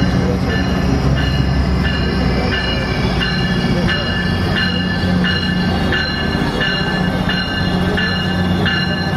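Metrolink MP36PH3-C diesel locomotive arriving, its bell ringing steadily about one and a half strikes a second over the low rumble of the engine.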